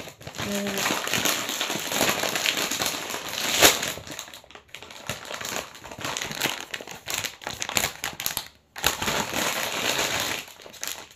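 Plastic mochi packaging crinkling and rustling as it is handled and opened, with a short break about three-quarters of the way through.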